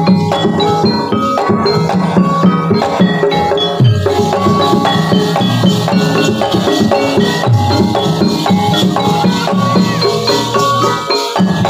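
Gamelan music accompanying a buto gedruk dance: metal-keyed instruments ring out quick repeated notes in an even pulse over drumming.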